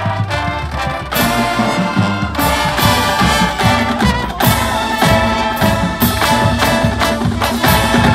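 Marching band playing: massed brass with sousaphones over a steady beat, growing louder about a second in and again a second or so later.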